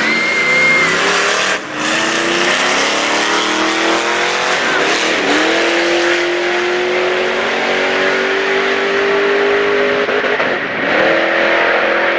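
Dodge Challenger's engine revved hard and held at high revs with tyres spinning in a burnout. The revs climb over the first few seconds and hold steady, sag briefly near the end, then rise again.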